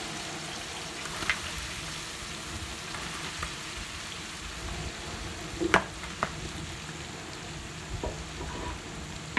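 Sliced onions sizzling in hot oil in a large metal wok, stirred with a metal ladle that clicks against the pan a few times, loudest a little under six seconds in.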